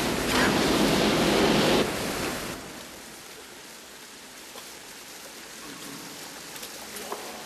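Flamethrower blast: a loud rushing whoosh of burning fuel for about two seconds that dies away. It gives way to a faint steady trickle of water in a sewer tunnel, with a few small clicks.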